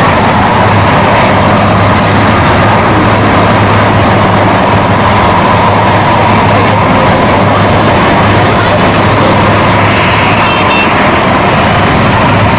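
Large turbine helicopter running on the ground with its main rotor turning before lift-off: loud, steady turbine and rotor noise.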